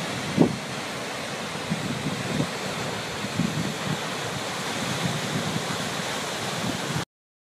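A tall waterfall pouring down: a steady rush of falling water, with wind buffeting the microphone in irregular low thumps. The sound cuts off suddenly near the end.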